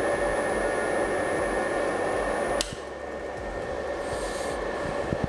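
Six-pole AIR-100L6 induction motor with split windings running on a test bench under three inverter controllers: a steady hum with a high, thin whine. About two and a half seconds in there is a click and the sound drops abruptly, the whine stopping and a lower, softer noise remaining.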